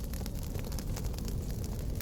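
Fireplace fire crackling, with frequent small sharp pops over a steady low rumble.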